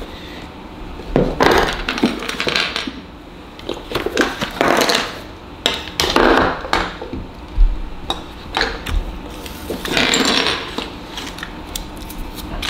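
Handling noise: a zippered carrying case and small camera accessories picked up, moved and set down on a tabletop, giving rustling and light clattering in a handful of irregular short bursts.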